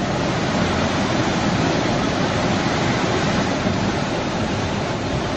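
Swollen river in flood rushing past, a steady, dense noise of fast-moving muddy water.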